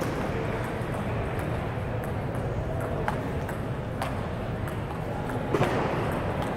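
Table tennis rally: the ball clicking sharply off paddles and table in a series of ticks a second or so apart, the loudest about five and a half seconds in, over steady background noise of the hall.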